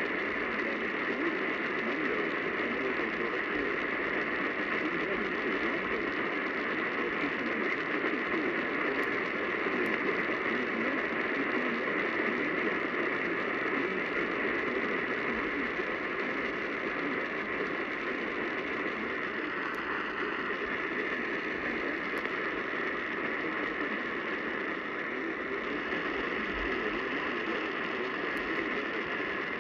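AM radio static from a weak, distant station signal: a steady hiss with a dull drone underneath, any programme buried under the noise.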